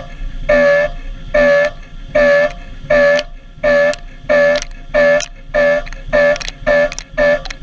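End mill high-speed machining 4130 steel, cutting in repeated passes. Each engagement of the cutter gives a short, loud, pitched tone. The passes come about once a second and get quicker toward the end.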